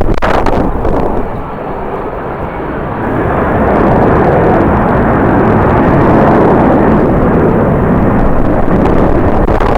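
Jet airliner engines rumbling, swelling about three seconds in and holding steady and loud. Strong wind buffets the microphone, with gust thumps near the start.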